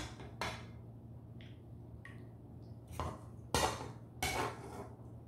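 Metal utensil knocking and scraping against a ceramic serving platter: two sharp knocks at the start, then a louder cluster of knocks and short scrapes about three to four and a half seconds in, over a low steady hum.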